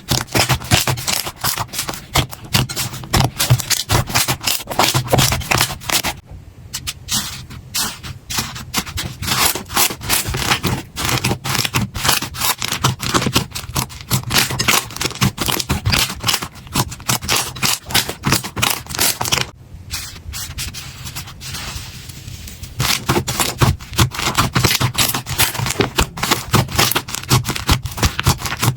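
Slime being squished and pressed, a dense run of small crackling pops and clicks, quieter for a couple of seconds about six seconds in and again around twenty seconds in.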